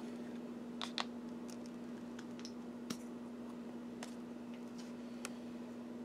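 A few small, scattered clicks and taps from handling a metal measuring spoon and the cap of a fragrance-oil bottle, over a steady low hum.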